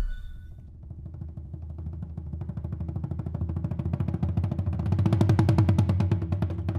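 Intro background music: a low boom, then a fast, even pulsing beat that swells steadily louder.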